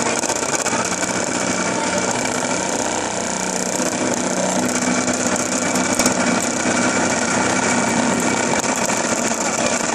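Home cotton candy machine running, its spinner-head motor whirring steadily with a hum while it spins out sugar floss. A light knock about six seconds in.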